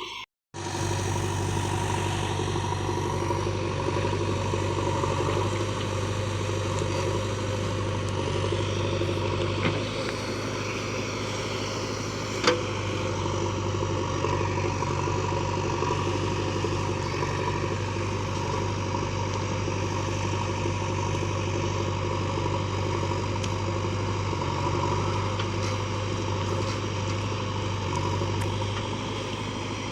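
Heavy diesel machinery engine, from a backhoe loader or tractor, running steadily with a low hum. A short sharp knock is heard about ten seconds in and another about twelve and a half seconds in.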